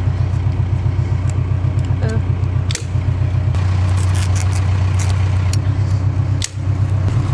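An engine running steadily at a constant speed, a loud low hum, with a few sharp clicks over it from a hand stapler fastening foam sill seal.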